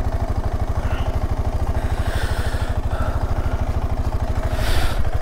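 KTM motorcycle engine running steadily with an even, rapid firing beat.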